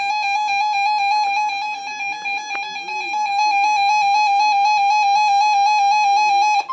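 Emergency Alert System attention tone: a loud, steady electronic alarm tone with a slight rapid warble, sounding over fainter programme audio. It cuts off about six and a half seconds in, when a steadier, higher tone takes over.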